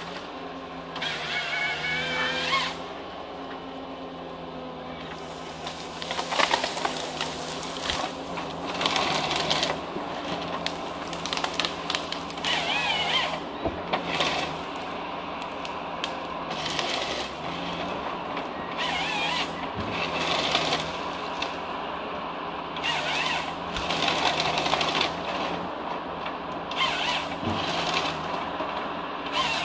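Forestry harvester's diesel engine running steadily, with repeated loud bursts of whining and grinding as its felling head saws and feeds a tree through, about every two to three seconds.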